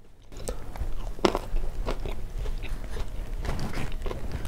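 Close-up eating sounds: a man biting into and chewing a breaded fried chicken strip. Sharp bites about a second in and again near the end, between wet chewing.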